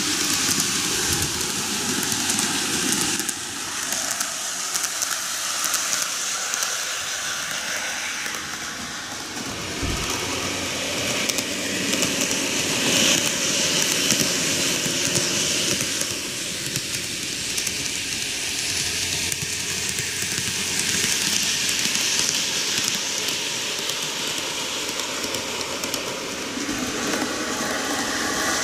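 TOMIX N gauge model trains running on sectional track: a steady whir and rattle of their motors and wheels, swelling about halfway through as a three-car set passes close by.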